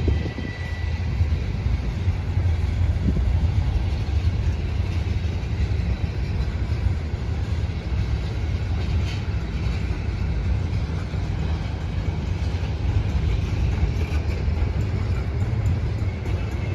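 Freight cars of a long train rolling past at speed: a steady rumble of steel wheels on the rails, with a brief faint high tone just after the start.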